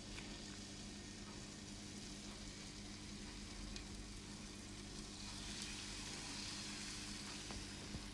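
Banana pancake batter sizzling in a hot frying pan: a steady, faint hiss that grows a little louder about five seconds in.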